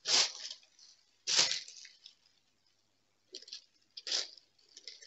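A crinkly cover sheet being handled, rustling in short bursts: two louder ones in the first two seconds, then a run of softer ones near the end.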